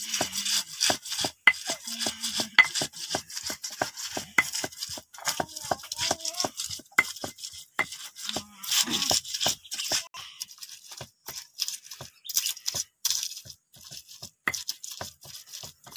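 Stone pestle pounding and grinding wet spice paste in a flat stone mortar: a steady run of knocks, about three a second, with gritty scraping between them.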